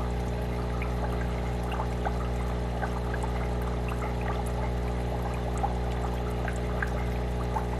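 Air-driven aquarium sponge filter bubbling steadily, air rising up its lift tube and breaking at the water surface in a continuous trickle of small bubble pops, over a steady low hum.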